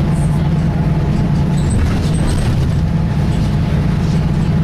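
Volvo B10BLE single-decker bus heard from inside the saloon: the rear-mounted diesel engine and Voith automatic gearbox running with a steady, unchanging low drone, with faint rattles from the bodywork.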